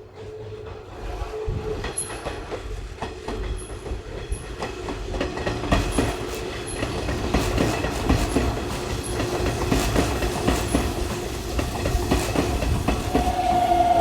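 Hanshin electric train running along the platform, getting louder over the first few seconds, with wheels clacking over rail joints and a steady whine. A strong steady high tone starts near the end.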